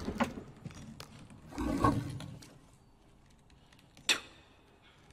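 A short, low vocal sound about two seconds in, then a single sharp knock a little after four seconds.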